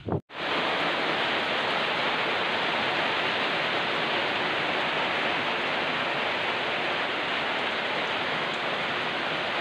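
Heavy rain falling in a steady, even hiss. It cuts in abruptly a fraction of a second in, after a brief moment of silence.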